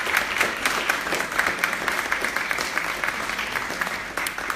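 Audience applauding: dense, steady clapping that begins to thin near the end.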